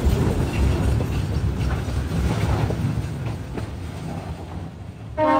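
Freight train wagons rolling past at very close range, a heavy rumble of steel wheels on the rails with scattered clacks, slowly growing quieter. Right at the end a train horn starts to sound.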